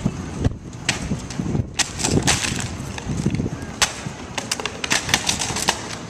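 Shoes stepping and scuffing on gritty asphalt: a run of irregular sharp scrapes and clicks over a low rumbling noise.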